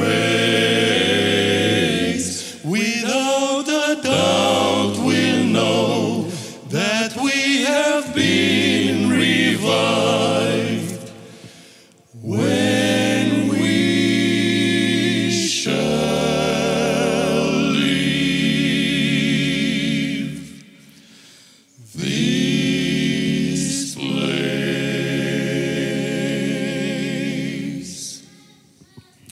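Male vocal quartet singing unaccompanied in close harmony, long held chords with vibrato. The phrases break off briefly twice, and the song ends on a long held chord near the end.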